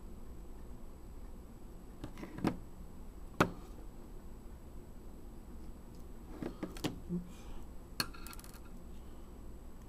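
Light clicks and knocks of a small screwdriver and a compact camera's case being handled on a wooden table while the case screws go back in. The two loudest knocks come about two and a half and three and a half seconds in, with a cluster of smaller clicks around seven to eight seconds in.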